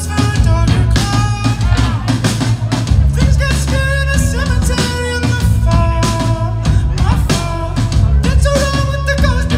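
Live band playing a loud song: a voice singing over drum kit, bass and saxophone.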